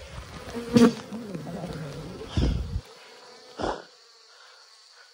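Wild honeybees buzzing around their broken-open nest, one passing close with a wavering buzz. There is a sharp knock about a second in and two short thumps after it; the buzzing is fainter near the end.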